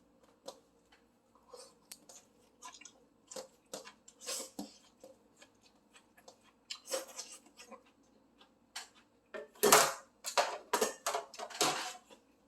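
Close-up eating sounds: irregular chewing with wet mouth clicks and occasional clinks of tableware, the loudest cluster of bursts about ten seconds in.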